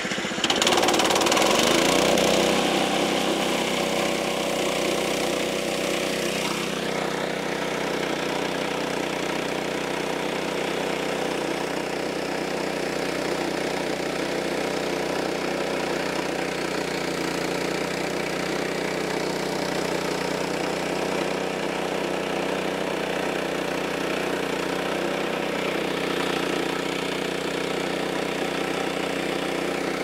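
Small gasoline engine of a Frontier OS23 portable band sawmill revving up sharply about half a second in, then running steadily at high speed while the band saw cuts a board from a red maple log.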